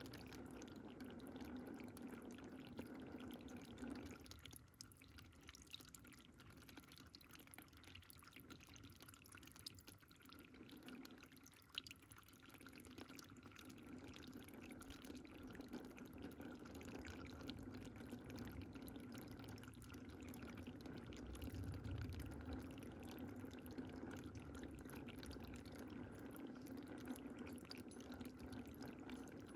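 Faint running water, pouring and dripping in a steady trickle. It grows quieter for several seconds a few seconds in, then picks up again.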